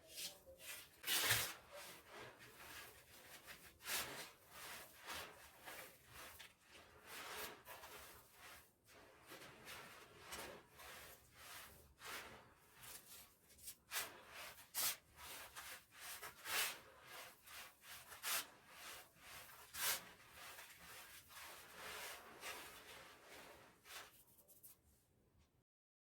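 Dry pure cement blocks being crumbled, a run of irregular gritty crunches and rubbing with a louder crunch every second or two, which stops suddenly near the end.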